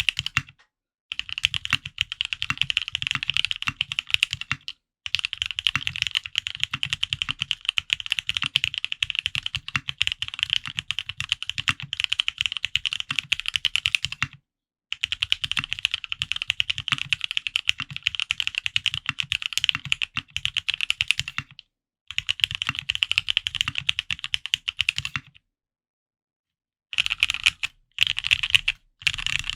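Fast typing on a Frog mini custom mechanical keyboard with lubed Gateron Ink Black linear switches and an aluminium plate, mounted on soft 50A tadpole gaskets. Keystroke clacks come in long steady runs broken by short pauses, then a few short bursts near the end.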